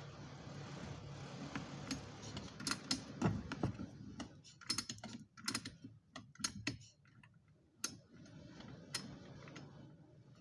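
Irregular sharp clicks and knocks of a Poulan P3816 chainsaw and its parts being handled during a carburetor repair, over a steady low noise that fades out about four seconds in.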